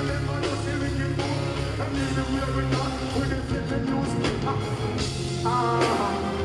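Dancehall music from a live concert set, with a heavy, steady bass line and beat; a voice may sing or chant over it.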